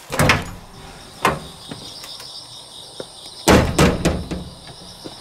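A door being opened, with several clunks and clatters, the loudest about three and a half seconds in. Crickets chirp steadily from outside once it is open.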